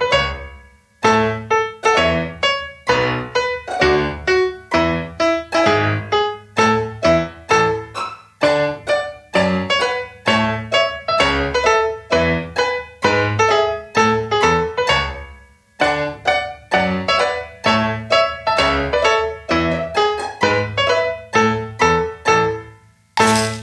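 Background piano music: a light tune of quick struck notes, pausing briefly about a second in, around the middle and just before the end.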